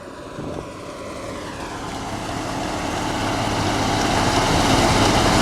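Case IH Axial-Flow combine harvester's diesel engine and threshing machinery droning steadily, growing louder throughout as it comes closer.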